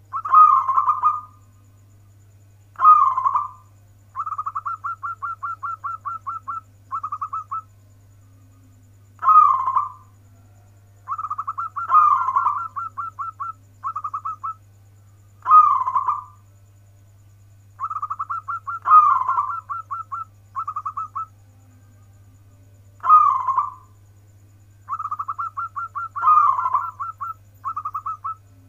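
A local zebra dove (perkutut) singing: a loud rolling coo about every three to four seconds, with runs of quick, evenly spaced short notes between the coos.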